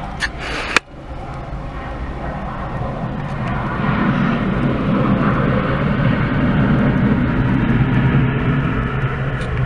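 Jet airliner engine noise building up over a few seconds as the plane draws near, holding loud, then easing slightly near the end. A few sharp clicks come in the first second.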